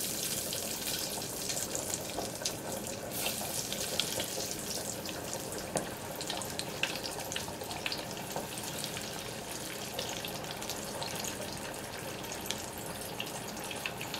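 Floured squirrel pieces deep-frying in hot canola oil in a small electric deep fryer: a steady bubbling hiss with a constant patter of small crackles.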